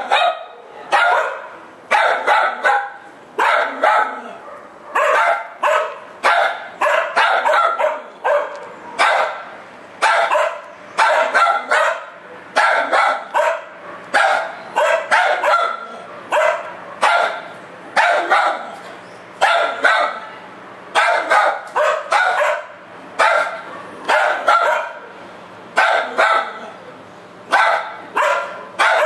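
Small dog barking over and over, short sharp barks often in pairs or quick runs, about one or two a second, keeping on without a break.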